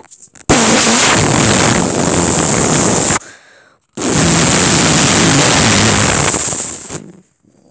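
Two long, loud, rough blasts of mock fart noise made right on the phone's microphone, the second starting about a second after the first stops.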